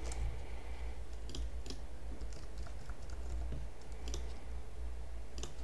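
Typing on a computer keyboard: scattered key clicks at uneven intervals.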